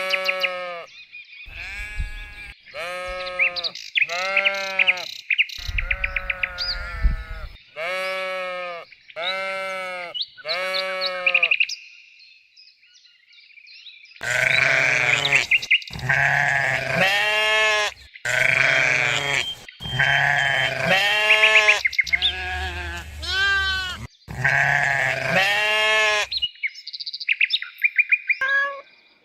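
Sheep bleating, one call after another, with a short quiet pause about halfway through, after which several bleats overlap.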